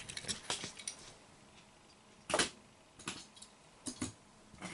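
Faint, scattered clicks and taps of small die-cast metal model cars being handled and set down, with one sharper click about halfway through.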